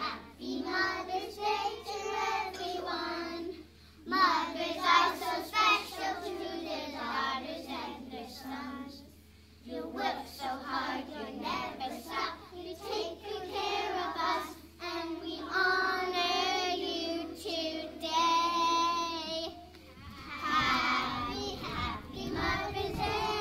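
A group of preschool children singing a song together, with short breaks between phrases.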